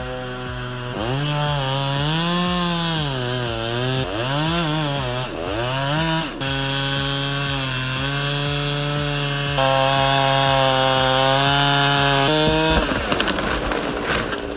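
Two-stroke chainsaw running under throttle: its engine note rises and falls several times, then holds steady at high revs. It stops shortly before the end, replaced by a brief noisy crackle.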